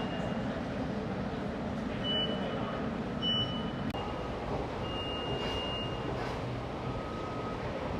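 Airport terminal ambience: a steady background rumble with several short, high electronic beeps, one about a second long near the middle, and fainter lower beeps toward the end.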